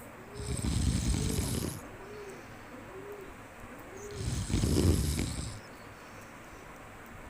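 A sleeping monkey snoring: two long noisy snores about four seconds apart, each lasting over a second. Between the snores a faint, short, pitched call repeats about every half second, stopping about four seconds in.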